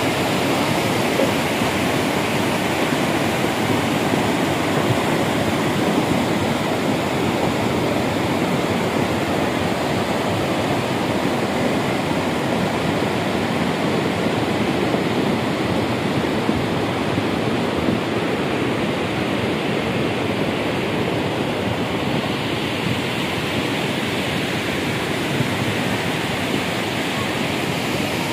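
Muddy mountain river in monsoon flood, its water rushing steadily over rocks and boulders.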